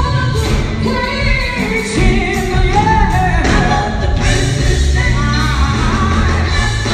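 Live gospel group singing with a band: voices over bass and drums.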